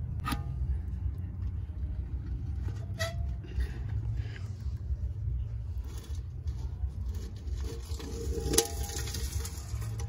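Metal bucket being lifted off embers with a hook and set down, giving a few sharp metallic knocks that ring briefly. There is one shortly after the start, another about three seconds in, and the loudest near the end. A steady low rumble runs underneath.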